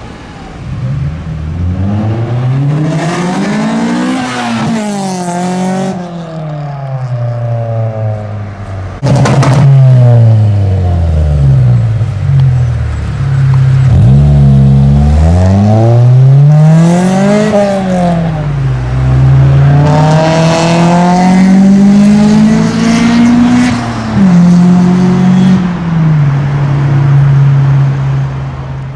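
Honda CRX's B16A 1.6-litre DOHC VTEC four-cylinder engine revving up and falling back again and again. There is one sharp bang about nine seconds in, typical of a backfire.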